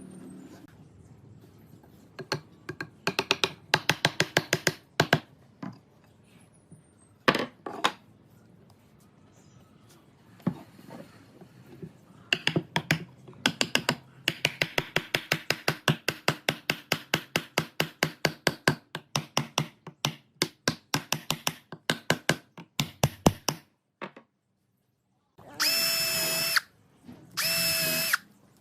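Woodworking tool noise: runs of sharp knocks on wood, about three or four a second, then near the end two short bursts, each about a second long, of an electric power tool's motor whining at a steady pitch.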